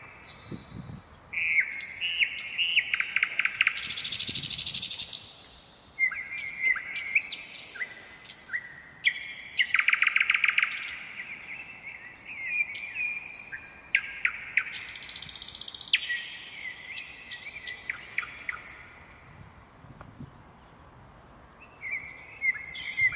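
Songbirds singing: quick chirping phrases, rapid trills and high buzzy notes in close succession, with a short lull about twenty seconds in.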